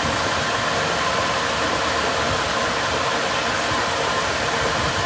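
A steady, even rushing noise with no distinct strokes, like a fan or motor running.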